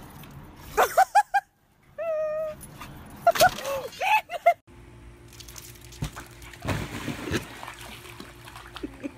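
A dog yipping in short high barks, with one drawn-out whine about two seconds in. After a cut about halfway through, water sloshes and splashes in a swimming pool.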